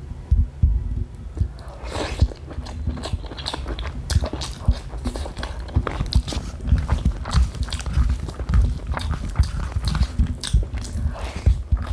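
A person biting and chewing hard-boiled eggs and green chillies close to the microphone, a dense run of sharp crunching clicks and low mouth thumps that gets busier about two seconds in.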